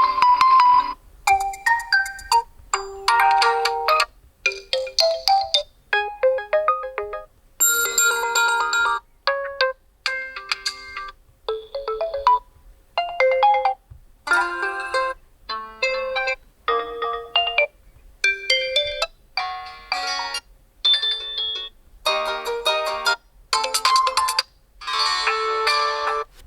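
Built-in ringtones of a Realme C25s phone played as a run of short snippets, about two dozen in all. Each is a chiming melody lasting about a second, cut off by a brief gap, and the tune changes from one snippet to the next.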